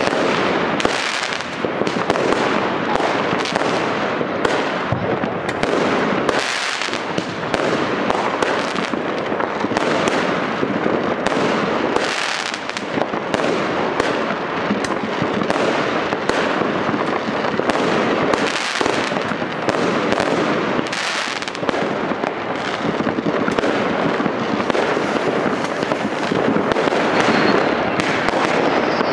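Fireworks going off without pause: a dense, continuous crackle of many overlapping bangs and pops.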